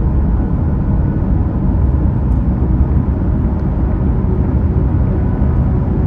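Steady low road and wind rumble of a car cruising along the highway, heard from inside the cabin, with faint ambient music tones under it.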